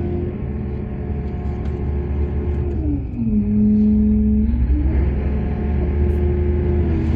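Heavy diesel engine of mining machinery running steadily. About three seconds in its pitch drops, holds low and a little louder for a second or so, then rises back to where it was.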